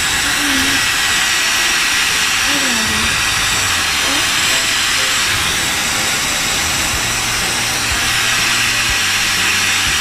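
Dyson Supersonic hair dryer running steadily, a loud even rush of air with a thin high whine from its motor, blowing on hair.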